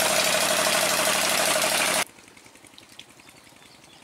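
Water gushing hard from an irrigation pump's outlet pipe into a concrete channel, loud and steady, over the running of the old Petter diesel engine driving the pump. About two seconds in the sound drops away suddenly, leaving the engine's low, even chugging heard faintly.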